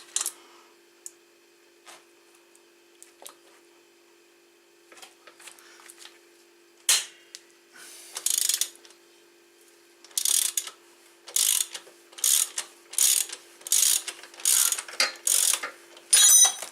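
Socket ratchet wrench clicking through repeated short strokes as a tight engine mounting bolt on a 125cc motorcycle is undone. A few scattered clicks and knocks come first, then the strokes follow about one every 0.7 seconds in the second half.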